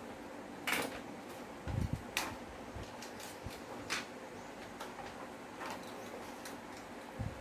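Steady hum of electric fans, with a few sharp clicks and soft knocks from handling on the workbench, about one, two and four seconds in.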